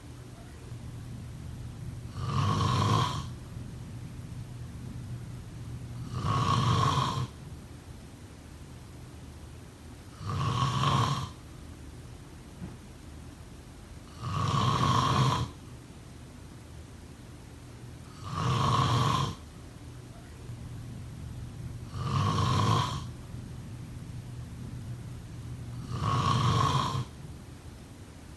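A person snoring in a slow, even rhythm: seven snores, each about a second long, one every four seconds or so, with a steady low hum between them.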